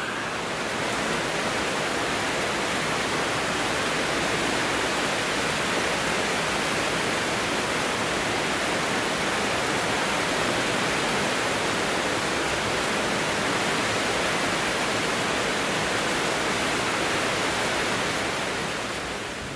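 Steady rain falling, an even hiss with no other sounds in it, easing down near the end.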